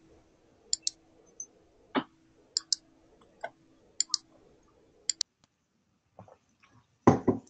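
Scattered computer mouse clicks, several in quick pairs, over a faint steady hum that stops about five seconds in, with a louder thump near the end.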